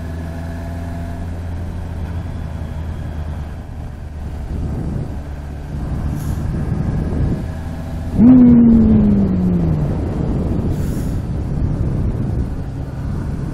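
Honda CBR650F inline-four engine running at low speed. About eight seconds in it gives a sudden loud throttle blip, with the revs falling away over a second or so.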